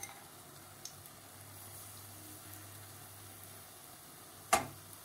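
Gram-flour (besan) pakoras frying in oil in a wok with a faint, steady sizzle over a low hum. A single sharp knock comes near the end, the spoon striking the pan as more batter is dropped in.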